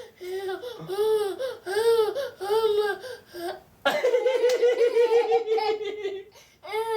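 Baby boy laughing hard. First comes a series of high squealing laughs about every half second. Then, about four seconds in, a long fast run of laughter lasts about two seconds, and one more laugh follows near the end.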